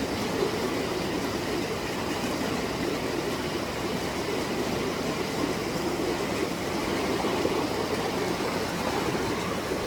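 Steady rushing of a flowing creek or river, with no distinct events.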